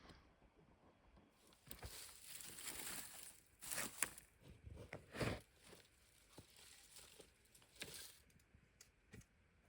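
Quiet rustling and crinkling handling noises, with two sharper knocks about four and five seconds in.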